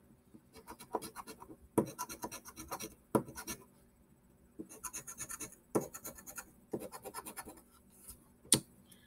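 A scratch-off lottery ticket being scratched, in several bursts of quick short strokes with brief pauses between them. A single sharp tap comes near the end.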